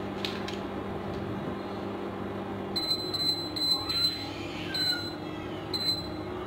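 Induction cooktop beeping about half a dozen times as its control-panel buttons are pressed, short high electronic beeps. Under them the cooktop's steady electrical hum, which changes as the beeping starts.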